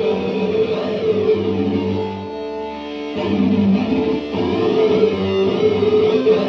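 Electric guitar played through an EarthQuaker Devices Data Corrupter, a harmonizing PLL synth pedal, giving sustained synth-like notes. Playing eases to a softer held note a little past two seconds in, then picks up again about three seconds in.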